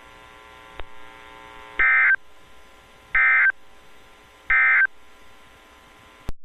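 Emergency Alert System End of Message code from NOAA Weather Radio: three short bursts of warbling digital data tones, about a second and a quarter apart, each much louder than the faint steady radio hum around them. A sharp click comes near the end.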